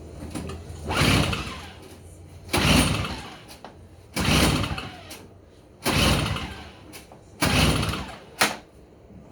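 Toro CCR 1000 snowblower's 3 hp two-stroke engine being cranked over in five short attempts, about one every second and a half, without catching, followed by a short click near the end. The engine won't start, a no-start that is later suspected to be a spark problem.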